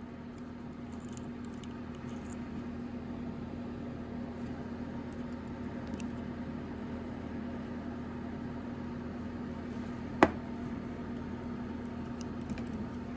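Steady low hum with a few faint handling clicks as clutch springs and bolts are worked off a motorcycle clutch by hand. One sharp click about ten seconds in, a clutch spring set down on the wooden bench.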